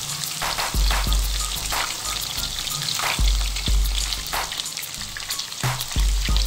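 Minced-meat koftas deep-frying in hot oil: a dense, steady sizzle and crackle of oil bubbling around them. Low thuds recur every second or so underneath.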